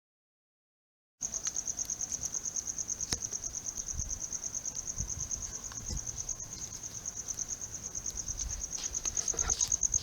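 A cricket chirping in a fast, even pulsing trill that starts about a second in and goes on steadily, with a few faint knocks.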